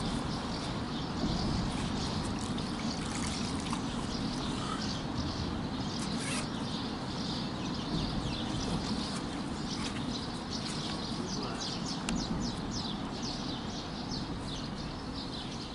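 River water sloshing and trickling around a carp sling as it is lowered into the shallows and opened to let a carp swim free, under a steady low rumble. Small birds chirp throughout, more busily in the second half.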